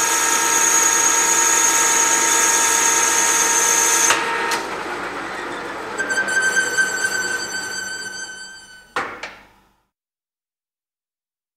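Industrial lathe turning brass: a steady high-pitched machining whine that changes with a clack about four seconds in. A new, thinner squealing tone starts about six seconds in and fades away, and a sharp click comes near the end.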